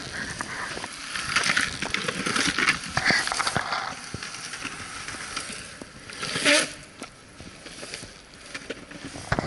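Surfskate wheels rolling and carving over stone paving tiles, a steady rolling rush broken by quick clicks as the wheels cross the tile joints, with one louder burst about six and a half seconds in.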